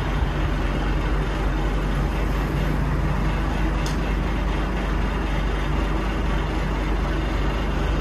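Diesel truck engine running steadily with a low hum, powering a truck-mounted hydraulic crane as it lowers a suspended tractor.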